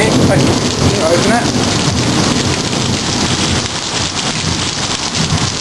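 Heavy rain pouring down in a thunderstorm, a loud, steady hiss of rain striking hard surfaces.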